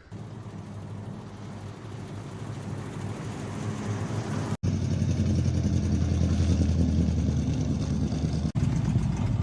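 A vehicle engine running steadily, a low hum that grows louder over the first few seconds. It breaks off abruptly twice, about four and a half seconds in and near the end.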